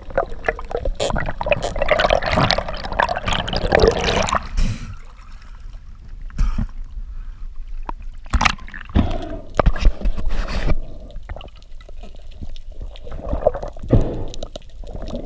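Water sloshing and bubbling around a diver's waterproof camera housing, thick for the first four seconds or so, then quieter with sharp knocks and short splashes as the diver breaks the surface and swims there.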